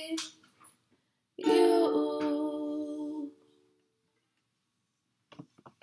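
Ukulele strummed in one final chord about a second and a half in, ringing and fading away over about two seconds at the close of the song. A few faint clicks near the end.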